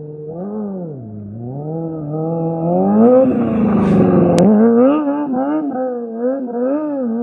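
Motorcycle engine revving up and down as the bike passes close by, loudest about three to five seconds in. After that the revs rise and fall quickly, about two or three times a second, as the rider works the throttle.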